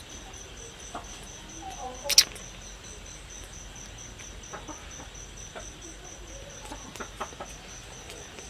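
Cricket chirping steadily, a high pulse about three times a second, with one sharp click about two seconds in and a few faint soft clicks.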